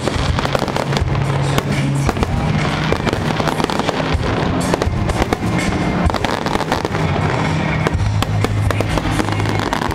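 Aerial fireworks bursting in quick succession: a dense, continuous run of bangs and crackles with no pause, with music playing underneath.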